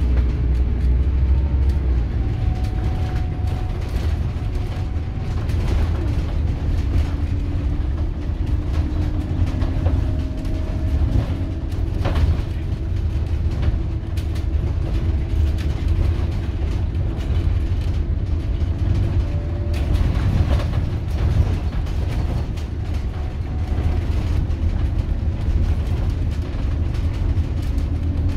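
Inside a Scania K280UB city bus on the move: the five-cylinder diesel's steady low rumble, with whining tones from the engine and ZF Ecomat automatic gearbox that slowly rise and fall as the bus speeds up and slows. Frequent small rattles come from the body and seats.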